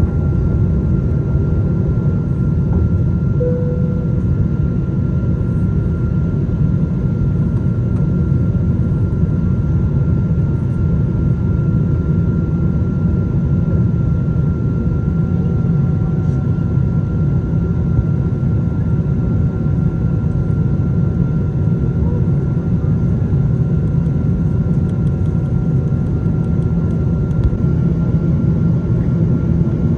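Steady cabin roar of a Boeing 777-200ER in flight, heard from a window seat over the wing: engine and airflow noise, deep and even, with a faint steady whine above it.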